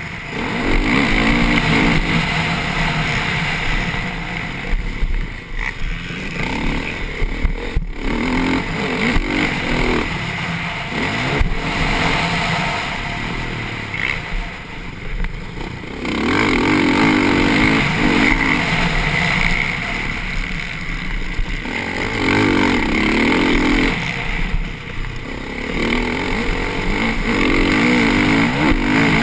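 TM Racing motocross bike's engine at race pace, revving hard and dropping off the throttle about 5, 15 and 25 seconds in before opening up again.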